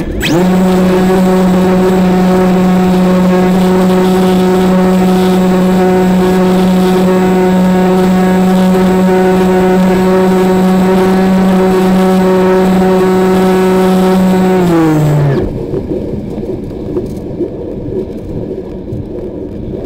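RC model plane's motor and propeller running at steady high throttle, a loud even buzzing tone heard from the onboard camera. About 15 seconds in the pitch steps down and the motor cuts off, leaving wind rushing past the plane as it glides.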